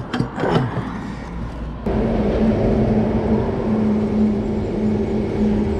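Forecourt fuel pump dispensing unleaded petrol through the nozzle into a motorcycle's tank. The pump motor starts suddenly about two seconds in and then runs with a steady hum as fuel flows.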